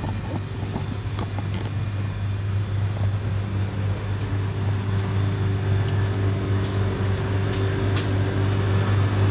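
Steady low machine hum at one fixed pitch, with a few faint clicks and knocks from handling.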